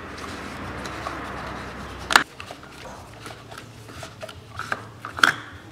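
Gloved hand unscrewing the plastic cap of a Peugeot 407's coolant expansion tank. It makes a rubbing, scraping noise for about two seconds, then a sharp click, then small handling clicks, with another sharp click near the end.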